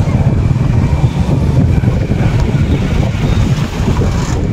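Wind buffeting the microphone on a moving motorcycle, a loud, uneven rumble over the bike's running engine.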